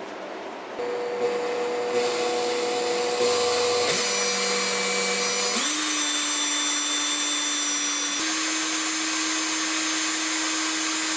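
Makita cordless drill running and spinning a sewing-machine motor armature in its chuck while 1000-grit sandpaper is held against the commutator. The steady whine starts about a second in and steps up in pitch a few times as the drill speed changes.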